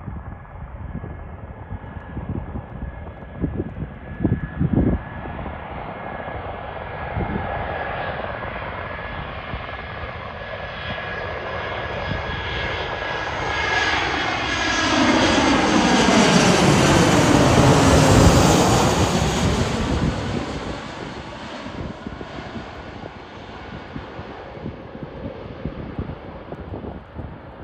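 Airbus A320-214 airliner with CFM56-5B turbofans on low final approach, flying overhead. The jet noise builds, is loudest about 16 to 19 seconds in with a whine that sweeps in pitch as the plane passes over, then fades as it heads on to the runway.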